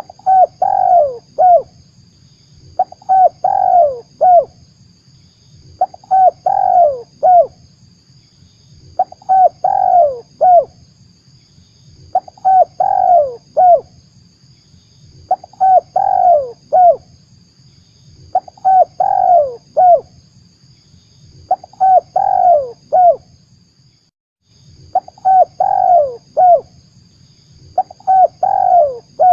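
Spotted dove (tekukur) cooing: a phrase of three or four falling coos repeated about every three seconds. This is a recorded lure call played to draw wild doves to a trap. A faint steady high-pitched tone and a low hum sit behind it.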